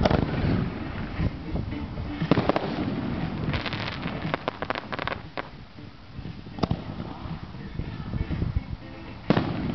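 Consumer fireworks cake firing aerial shots: sharp bangs of launches and bursts, with a rapid run of crackling reports about four seconds in, then single loud bangs about two-thirds through and near the end.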